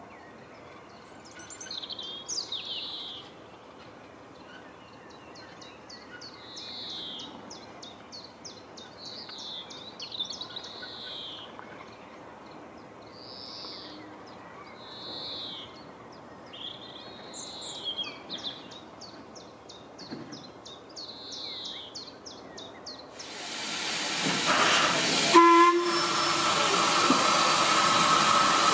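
Songbirds singing, with short chirps and quick trills. Near the end, the steam of Ivatt class 2MT locomotive 46447 starts up loud and sudden, a steady hiss with a brief tonal note about two seconds in, and it keeps on hissing.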